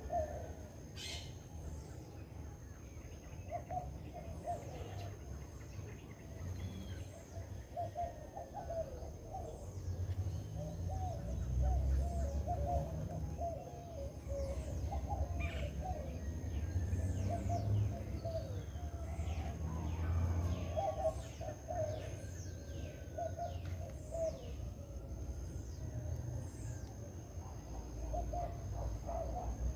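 Dawn chorus of several birds: many short, quick, falling chirps and lower choppy calls throughout, over a low rumble and a faint steady high tone.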